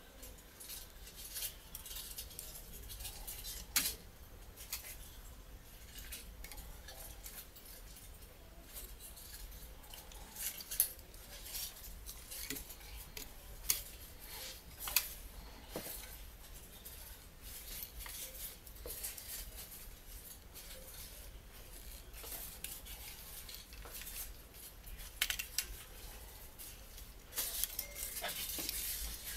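Small clicks, taps and scrapes of plastic and metal parts as a Canon EOS 60D camera body is handled and taken apart by hand. There are a few sharper clicks along the way and a busier stretch of rattling and scraping near the end.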